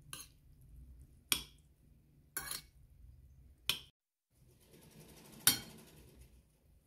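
Metal spoon clinking against a ceramic plate as rice is spooned and mixed: five sharp clinks about a second apart, with a soft rustle around the last one.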